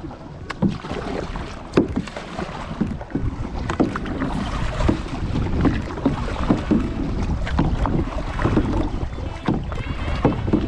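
Canoe paddling: paddle strokes splashing in the water and irregular knocks against the canoe, over a low rumble of wind on the microphone.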